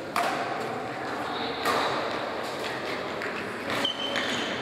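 Badminton rackets striking a shuttlecock during a rally: three sharp hits about a second and a half to two seconds apart, echoing in a large sports hall.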